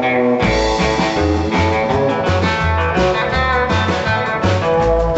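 Country band playing an instrumental passage with no singing: guitar lines over a steady bass line that alternates between two low notes.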